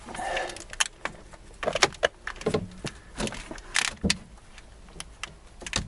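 Hands working in a van's engine bay, with clothing rustling against the parts and a scattered series of short plastic and metal clicks and knocks as the wiring plug is worked onto the alternator.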